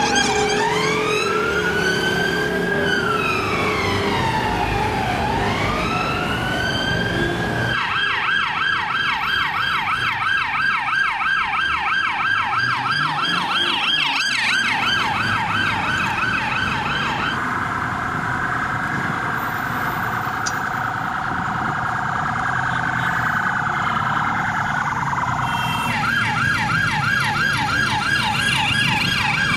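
Police siren on a passing vehicle: a slow wail rising and falling for about seven seconds, then switched to a fast yelp, then a faster warble, and back to the yelp near the end. Traffic noise runs underneath.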